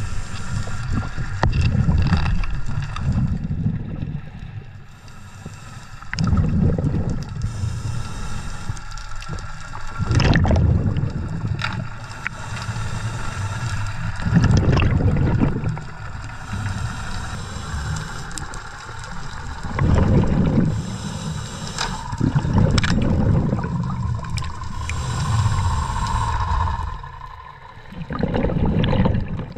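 Scuba diver breathing through a regulator underwater: repeated rumbling rushes of exhaled bubbles, each a second or two long, alternating with hissing inhalations, one breath every four to five seconds.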